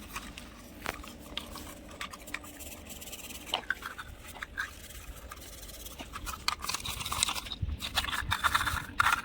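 Hands scrubbing and rubbing a muddy toy JCB backhoe loader while washing it. Irregular scraping with scattered small clicks, getting busier and louder over the last two seconds or so.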